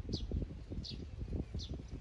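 A bird gives a short, high chirp that falls in pitch, three times at an even pace about 0.7 s apart, over a low, uneven rumble.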